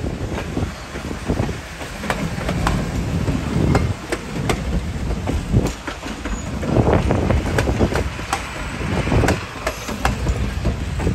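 Steel heavyweight passenger cars rolling slowly past close by: a low rumble of the trucks with sharp, irregular clicks as the wheels cross rail joints.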